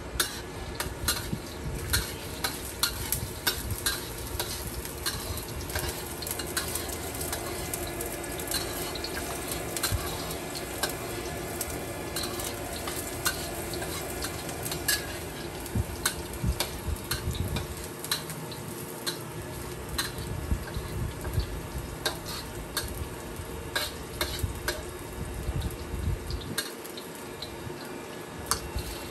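Stir-frying noodles in a wok over steady sizzling, with a metal spatula clacking and scraping against the wok in quick, irregular strokes.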